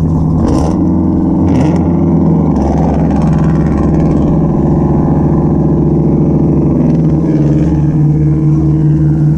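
Loud, steady drone of a large charter fishing boat's engines passing a few metres away, its propeller wash churning alongside.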